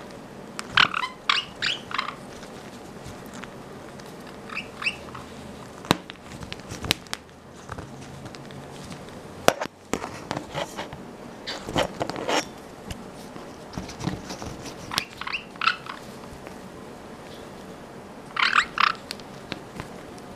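Caiques giving short runs of high, squeaky chirps four times, with scuffling and rustling as a bird rubs and rolls on a towel, and a few sharp clicks or taps.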